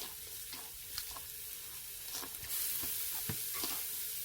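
Pork neck sizzling over a charcoal brazier: a steady hiss scattered with small pops and crackles from the fat, the hiss growing louder about two and a half seconds in.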